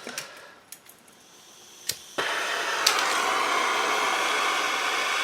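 A few light clicks, then a heat gun switches on about two seconds in and runs with a steady blowing hiss. It gets brighter and harsher about a second later, as if turned up to its highest heat setting, while heating solder on a radiator repair.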